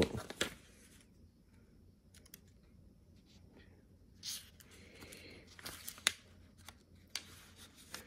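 Paper pages of a folded instruction manual being leafed through by hand: soft rustles and flicks of paper in short, uneven bursts, mostly in the second half.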